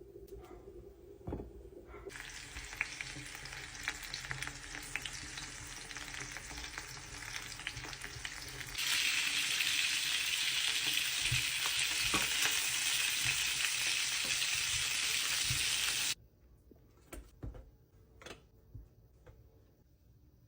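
Food sizzling and frying in a hot pan, with occasional stirring clinks. The sizzle starts about two seconds in, gets suddenly louder about nine seconds in, and stops abruptly about sixteen seconds in, followed by a few light knocks.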